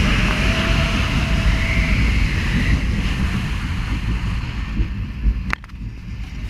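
Steel roller coaster train running along its track, a steady low rumble with wind rushing over the camera's microphone. A single sharp clack about five and a half seconds in, after which the noise drops as the train runs more slowly.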